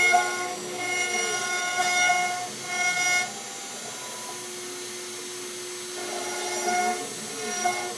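6090GZ CNC router moving its axes: the stepper motors whine in tones that rise and fall and switch on and off. They pause for about three seconds in the middle, leaving a steady hum.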